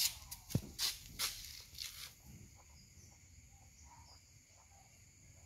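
A few light clicks and knocks of hand tools being handled on a concrete floor in the first two seconds. After that only a faint, steady, high insect chirring remains.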